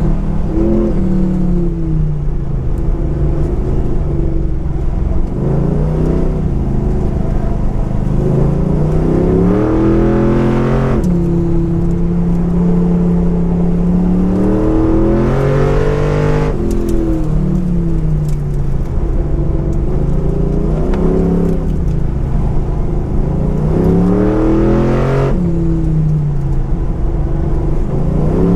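The wagon's 430-cubic-inch LS V8 running hard on a road course. The engine note climbs and falls again and again as it accelerates, shifts and slows, and holds a steady high pitch for about five seconds near the middle.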